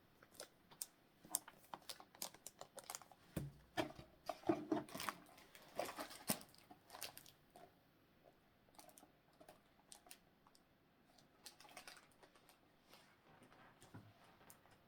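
Irregular light clicks, taps and rustles of a cardboard trading-card box and its small contents being handled and rummaged through, busier in the first half and fainter later.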